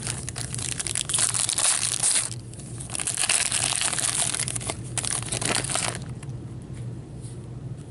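Plastic wrapper of a hockey card pack being torn open and crinkled by hand. The crinkling is dense for about two seconds, breaks off briefly, goes on until about six seconds in, then quiets down.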